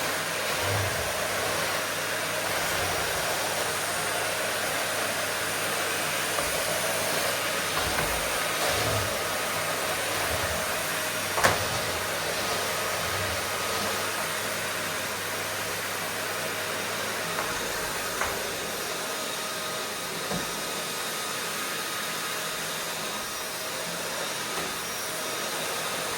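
Vacuum cleaner running steadily, a constant rushing hum with a faint whine, with a sharp click about halfway through and a smaller one later.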